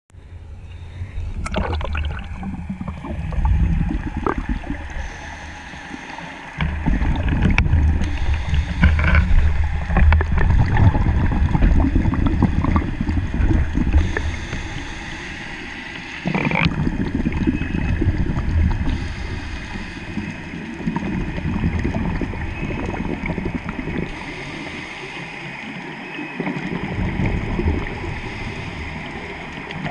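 Underwater sound of a scuba descent: a muffled low rumble of water with bouts of gurgling from the diver's exhaled regulator bubbles, coming every few seconds, and a few sharp clicks.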